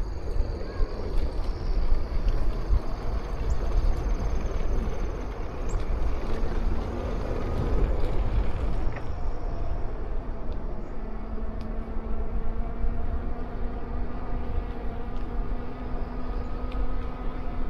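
Wind rumbling on the microphone during a ride, with road noise. About six seconds in, a steady vehicle hum joins and holds.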